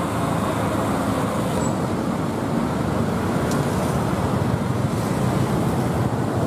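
Steady road traffic noise from cars and motorbikes on a busy street.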